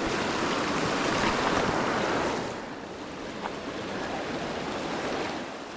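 Rushing water of a mountain stream, a steady noise that drops noticeably in loudness about two and a half seconds in.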